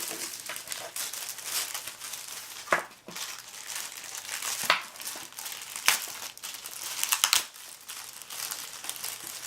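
Packaging crinkling and rustling as camera accessories are unpacked from their box, with a few sharp clicks and taps along the way.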